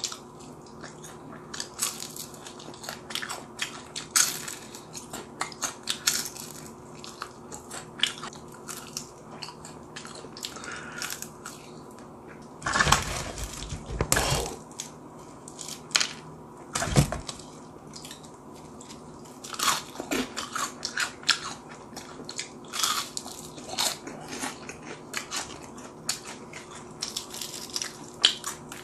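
Crisp Korean fried chicken bitten and chewed close to the microphone: a dense, irregular run of crunches and crackles. Louder, fuller crackling comes about halfway through, while hands dig a piece out of the paper chicken box.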